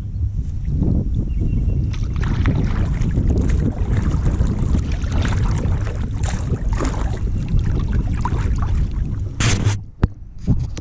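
Wind buffeting the microphone while kayak paddles splash and drip with each stroke; a brief sharp knock near the end.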